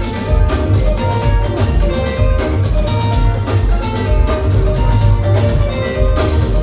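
Live Fuji band music without vocals: driving drums and percussion under short melodic notes from a keyboard-like instrument.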